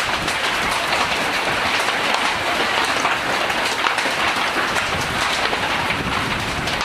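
Hailstones and rain pelting down: a dense, steady clatter of many small impacts.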